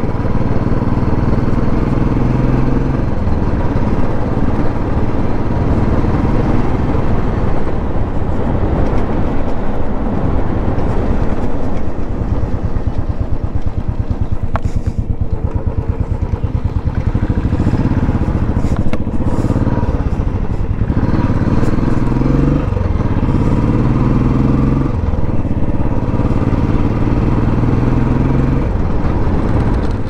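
Motorcycle engine running under way at low speed, its pitch stepping up and down a few times as the throttle changes.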